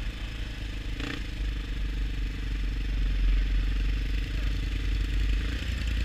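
ATV engines running on snow-covered ice, the low rumble growing louder about a second and a half in, with a brief rattle about a second in.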